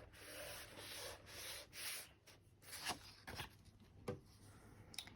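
Faint rubbing of card stock being pressed and smoothed down by hand, followed by a few light taps as the card is handled.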